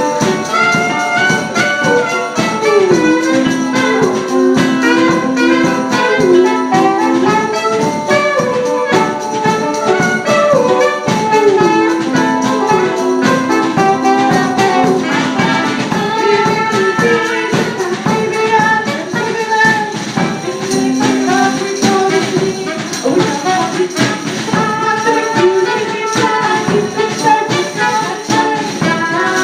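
A live band playing an instrumental passage of an upbeat song, with held melody notes over a tambourine shaken in a steady rhythm.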